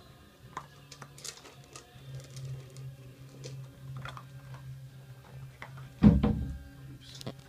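Siberian husky puppies eating dry kibble from a metal bowl: scattered small crunches and clicks over a steady low hum, with a loud thump about six seconds in.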